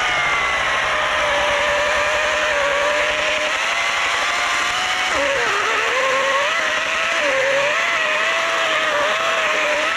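Oregon electric chainsaw running flat out with a steady whine. About five seconds in the pitch sags, then wavers repeatedly as the chain bites into a log. The chain is blunt and cuts slowly.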